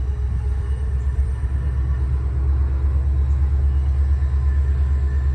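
Low, steady rumble of an approaching MARC MP36 diesel locomotive, slowly growing louder, with faint steady engine tones above it.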